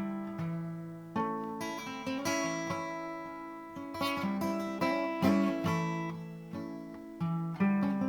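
Acoustic guitar playing the opening of a song, chords and notes struck one after another and left to ring, with no singing yet.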